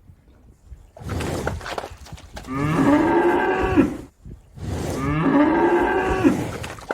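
Cow mooing twice, two long calls a second or so apart, each ending with a quick drop in pitch.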